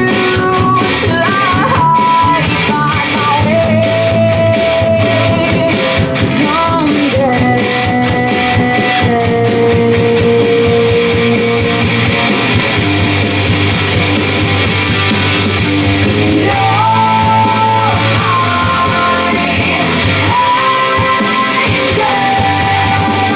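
Rock song with singing and guitar, played from CD through a hi-fi system with a freshly repaired Dynaco PAS preamplifier.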